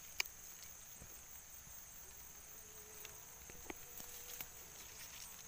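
Steady high-pitched insect chirring, crickets or similar, with a few soft clicks and rustles scattered through.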